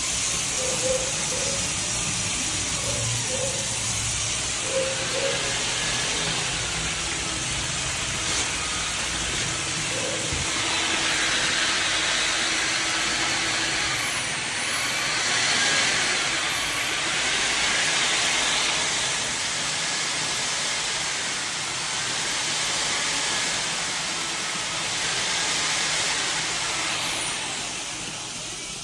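Steady hissing rush of water running under pressure through the plumbing, with a few light knocks, easing off near the end.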